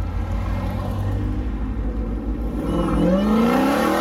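Car engines rumbling as cars pull away one after another. In the last second and a half, a Dodge Challenger accelerates close past, its engine note rising and loudest near the end.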